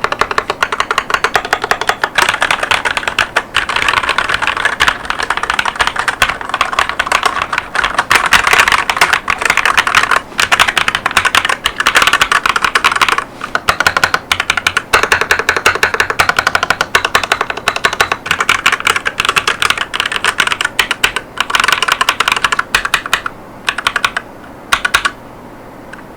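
Fast, continuous typing on an Akko 5108S mechanical keyboard with Akko Cream Yellow linear switches (50 gf) and PBT OEM-profile keycaps. Near the end the keystrokes thin out to a few separate presses.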